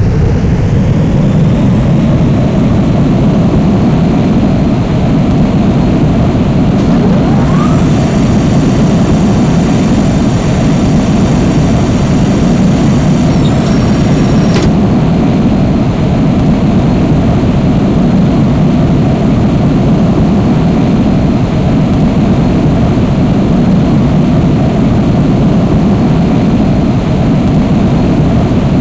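Jet aircraft engines running with a loud, steady low roar. A faint high whine shows for a few seconds about a third of the way through.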